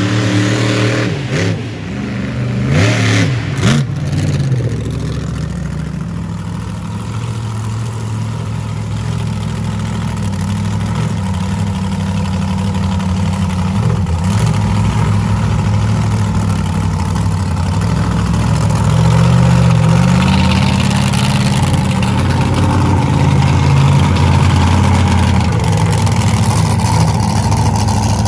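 A 1,500-horsepower competition monster truck engine revving hard, its pitch swinging up and down, with a few sharp bangs in the first few seconds. It then runs steadily and grows louder about two-thirds of the way through as the truck comes close.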